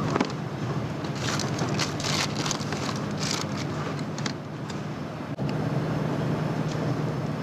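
A steady low mechanical hum, with bursts of crinkly, hissy noise between about one and three and a half seconds in.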